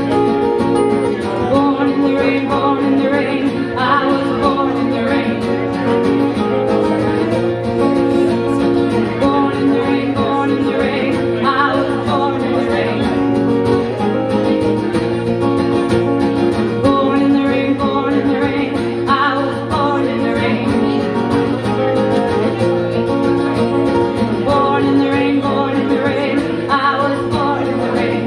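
Live song: a woman singing while strumming an acoustic guitar, with a second guitar played alongside.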